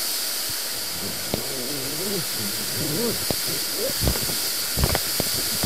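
Steady rushing hiss of water flowing through the Neglinka river's underground collector tunnel, with irregular thuds and splashes of footsteps wading along the wet tunnel floor and faint wavering voices about a second in.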